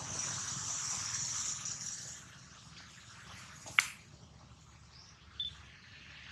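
Quiet outdoor ambience: a steady high insect-like hiss for the first two seconds, one sharp click a little under four seconds in, and a short high chirp near the end.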